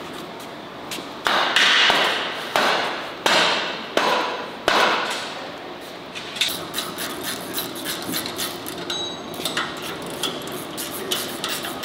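A hammer striking steel: four or five hard, ringing blows over the first five seconds, followed by a run of lighter metallic taps and clinks.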